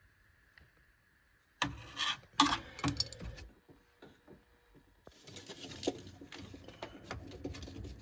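Hands handling plastic furnace parts and rubber hoses. After a quiet first second or so there are several sharp plastic clacks, then steady rubbing and light clicking from about five seconds in.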